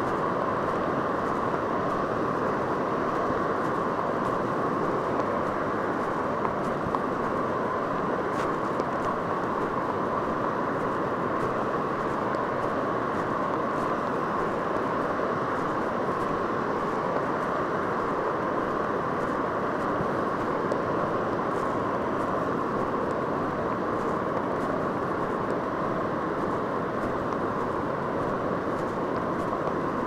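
Steady, unbroken roar of ocean surf washing onto a sandy beach.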